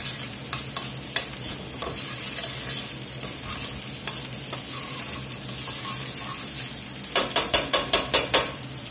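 Metal tongs stirring a simmering tomato-and-mushroom braising sauce in a stainless steel stock pot: a steady bubbling sizzle with scattered light scrapes and clicks. Near the end comes a quick run of about eight sharp metallic clicks, about six a second.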